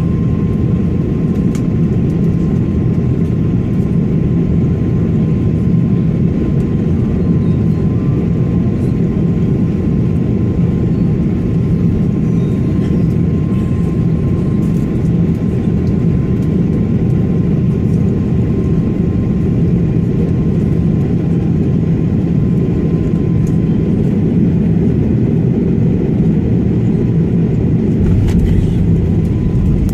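Steady, loud cabin noise of an Airbus A330-300 airliner in flight, the deep rumble of engines and airflow heard from inside the passenger cabin, with a thin steady whine above it.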